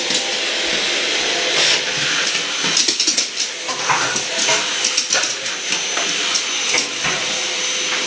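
Hoover vacuum cleaner running with a steady hiss and a high whine, while a dog makes short, sharp noises at it every second or so.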